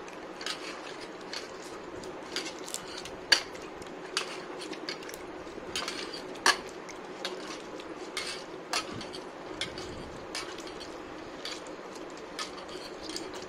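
Soaked tamarind being squeezed and worked by hand in water in a steel bowl with a strainer: irregular light clinks and taps of hand and strainer against the steel, the loudest about three and six and a half seconds in.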